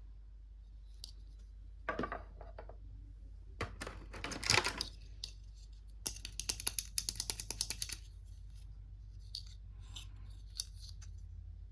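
Small plastic toy parts and packaging being handled, with scattered rustles and taps. About six seconds in comes a quick run of sharp clicks lasting about two seconds.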